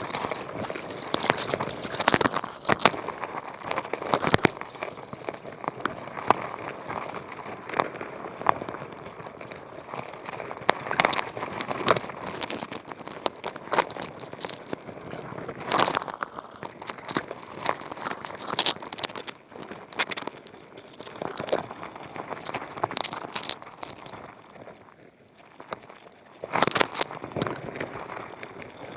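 Dense, irregular underwater clicking and crackling, heard through an action camera's waterproof housing, with sharper clicks standing out every second or so. It drops away briefly about 25 seconds in, then picks up again.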